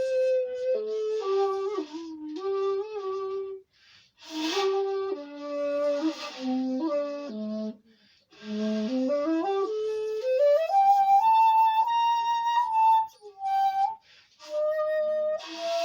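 Bamboo flute playing a slow melody in breathy phrases with short pauses between them. Partway through, a run of notes climbs stepwise to a higher register, where a few notes are held before the phrase ends.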